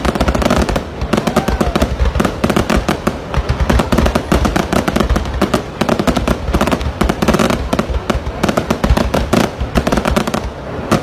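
Aerial fireworks display: shells bursting in a dense, unbroken run of bangs and crackles, several a second, over a low rumble.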